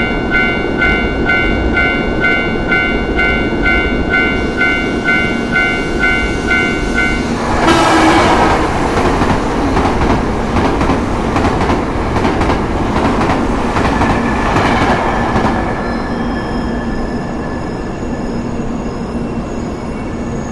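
A warning signal chimes in a repeating multi-tone pulse about twice a second. It stops about seven seconds in as a train comes through with a loud rush of rail noise and wheel clatter. After about fifteen seconds this eases into a steadier train hum with faint whining tones.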